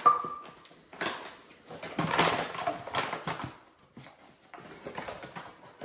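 A click with a short high ring at the start, then the rustle of a paper flour bag and flour being scooped with a metal measuring cup.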